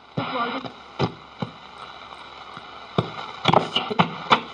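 Shortwave static from a Philips L4x-26T radio's speaker between stations: a steady hiss broken by sharp crackles and clicks, a cluster of them near the end.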